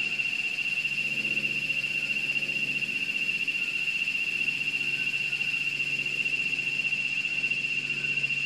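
Steady, shrill chorus of insects: one high-pitched trill held without a break, over a faint low hum.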